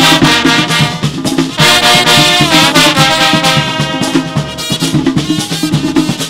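Brass band playing, with trombones, euphonium and trumpets sounding sustained phrases in chords over drums. The horns break off briefly about a second and a half in, then come back with a new phrase.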